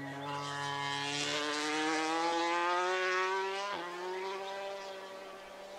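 A vehicle engine running, its pitch rising slowly as it grows louder, then levelling off and fading.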